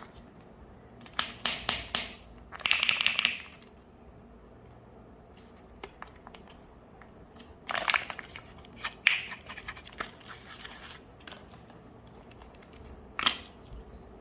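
Kinder Joy egg's plastic wrapper crinkling and tearing as it is opened by hand, in several bursts of rustling, with a single sharp snap near the end.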